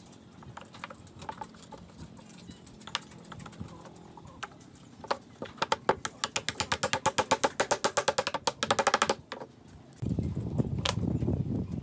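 Wood knocking on wood: loose end-grain pine blocks clicking as they are set into a table top, then a fast, even run of taps, about eight a second for some three seconds, as the blocks are knocked down with a hand-held piece of wood. Near the end a steady low noise comes in.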